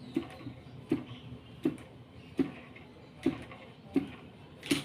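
Small two-stroke model-airplane engine being turned over by hand, a knock about every three-quarters of a second, each with a sharp click. The engine does not catch.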